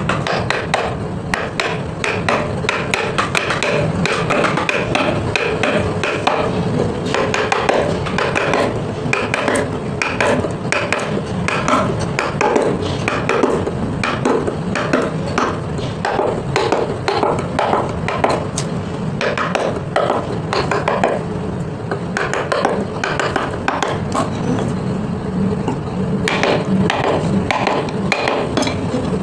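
Hand wood carving: many quick, repeated mallet taps on a chisel cutting into wood, going on steadily.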